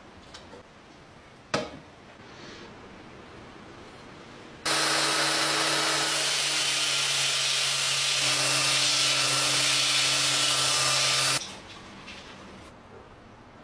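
Makita belt sander, set upside down, running for about seven seconds with a steady hum under a loud grinding hiss as the cast-iron soleplate of a charcoal iron is pressed on its belt and sanded bright; it starts and stops abruptly. Before it, light handling sounds and one sharp click.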